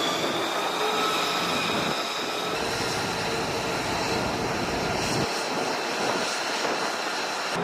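F-35 Lightning II jet engine running on a carrier flight deck: a high turbine whine that rises slightly in pitch in the first second and then holds steady over a loud rush of engine noise.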